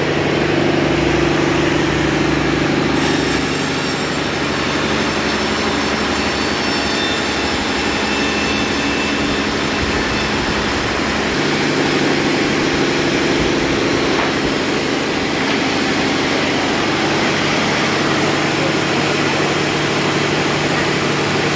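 A motor running steadily with a low hum. From about three seconds in to about eleven seconds a higher hiss joins it, then drops away.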